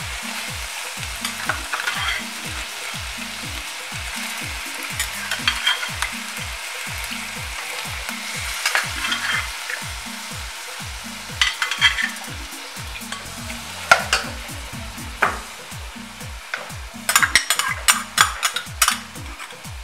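Goat meat sizzling in an aluminium caldero as sliced peppers and onions go in and are stirred, with a steady frying hiss. Scrapes and clicks against the pot come now and then, in quick clusters about two-thirds of the way in and near the end.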